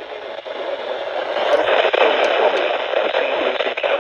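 Static hiss from a NOAA Weather Radio receiver with no clear voice coming through, growing louder about a second and a half in, with a few crackling clicks.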